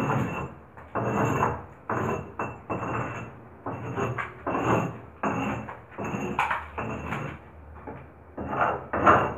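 A metal bar (a pointed chisel) scraped across a plaster wall in repeated strokes, a little over one a second, rasping off flaking old paint.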